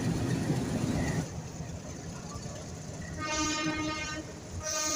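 Train running noise, which drops off abruptly about a second in. A train horn then sounds a steady note for about a second, and sounds again near the end.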